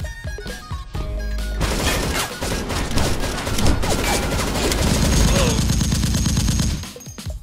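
A rapid volley of shots, like sustained gunfire, starting about a second and a half in and cutting off near the end, over background music.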